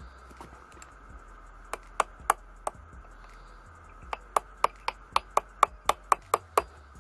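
Steel hammer tapping a gear and its keyed shaft into place in a milling machine's feed gearbox, each blow a sharp metallic tap with a short ring. Four separate taps come first, then a run of about ten quicker taps at roughly four a second.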